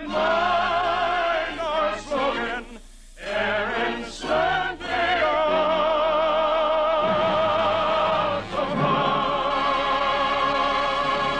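Operetta singing with orchestra: voices with vibrato hold long notes at the close of a rousing song, with a brief break about three seconds in.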